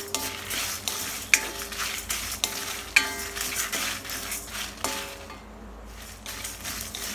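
A spatula stirring and scraping dry lentils, spices and dried red chillies around an iron kadai as they roast, with several sharp knocks against the pan that ring briefly. The stirring stops for about a second past the middle, then starts again.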